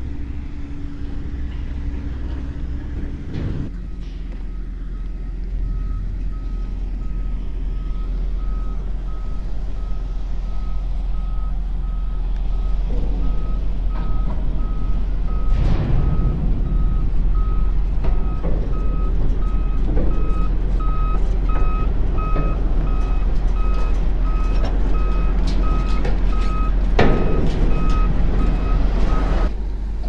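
Big tractor's diesel engine running as it reverses a loaded-size grain chaser bin, its reversing alarm beeping steadily at about two beeps a second from a few seconds in. The sound grows louder as the rig backs closer, with a few brief louder rushes.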